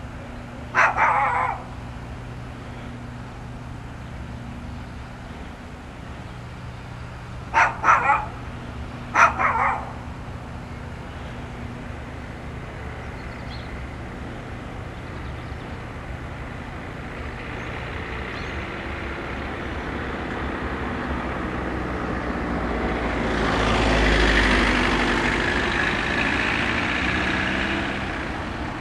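A dog barks in short bursts about a second in and again around eight and nine seconds in, over a steady low engine hum. A diesel-hauled freight train then approaches, its engine and wheel noise building to the loudest point about 24 seconds in before easing off.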